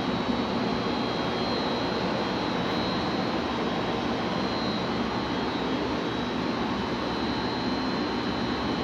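Electric motor running steadily: an even rushing hum with a thin high whine over it.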